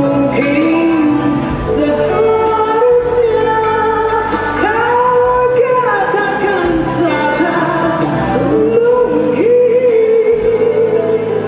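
A woman singing live into a microphone, holding long notes with vibrato and sliding between pitches, over a jazzy pop band with electric guitar and drums.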